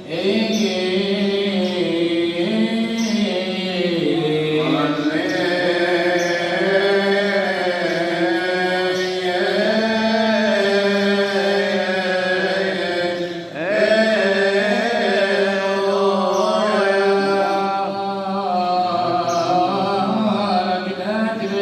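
A male deacon chanting a long, drawn-out melismatic Coptic liturgical hymn solo, holding and bending each note. He pauses once for a breath about two-thirds of the way through.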